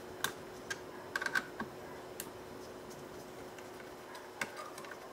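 Scattered light clicks and ticks of a screwdriver working the screws of a laptop's heatsink and fan assembly, and of the metal heatsink being handled, with a quick cluster of clicks about a second in. A faint steady hum runs underneath.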